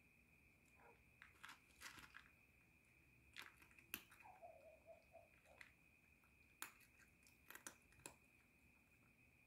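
Feral cat chewing and crunching food from a plastic bowl: faint, irregular crisp crunches about a second apart.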